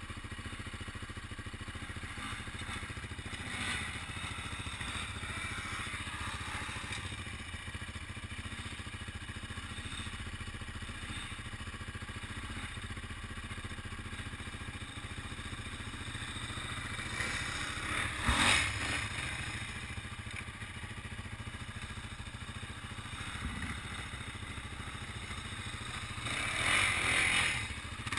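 Single-cylinder ATV engine idling steadily, with another quad's engine swelling louder as it rides by, once about two-thirds of the way through and again near the end.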